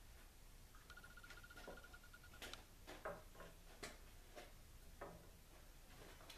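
Faint scrapes and light knocks of a pencil tracing around the base of a shot glass on a planed wooden board, with the glass shifted on the wood, about half a dozen soft taps in all. A faint pulsing high tone sounds for about a second and a half near the start.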